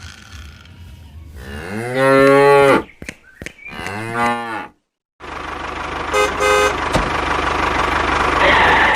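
A cow mooing twice, a long call then a shorter one falling in pitch. After a brief silence a steady engine-like running noise starts, with a short horn-like beep a second or so after it begins.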